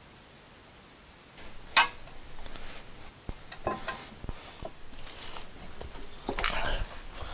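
Brake caliper bracket bolts being started by hand: scattered light metallic clicks and small clatters, with one sharp click about two seconds in and a busier patch near the end.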